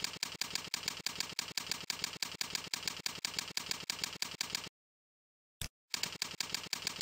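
Keyboard typing: quick, very evenly spaced key clicks at about five a second, as text is entered into form boxes. The clicks stop for about a second just before the end and then start again.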